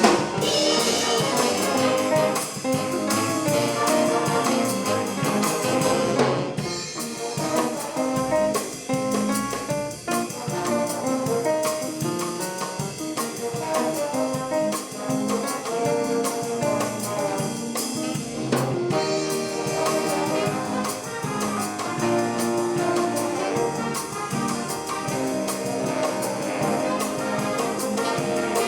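High school swing band playing an instrumental big-band jazz passage: trumpets and trombones over a drum kit, with brief breaks about six and nineteen seconds in.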